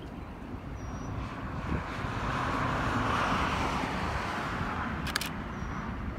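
Outdoor road-traffic noise: one vehicle swells past and fades over a few seconds, over a steady low wind rumble on the microphone. There is a brief, sharp crackle near the end.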